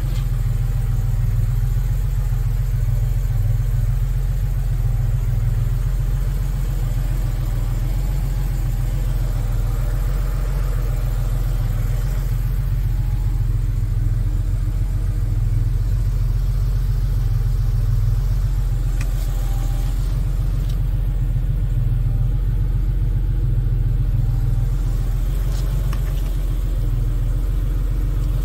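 An engine idling: a steady low rumble that swells and eases slowly.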